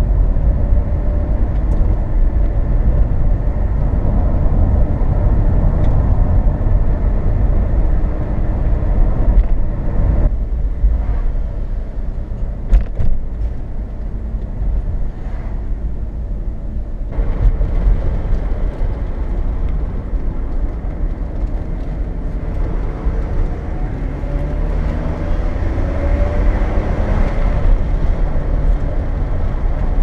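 In-cabin driving noise of a 2002 BMW E39 520i, a straight-six with a five-speed manual, under way: steady heavy engine and road rumble. The engine pitch rises as the car accelerates about three-quarters of the way through.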